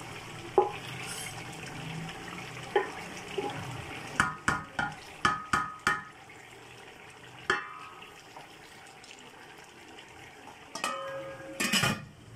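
Chicken pieces bubbling and sizzling in their own released juices in a large aluminium cooking pot, stirred with a wooden spoon that knocks against the pot's sides several times around the middle. Near the end the aluminium lid is set on the pot with a ringing metal clank.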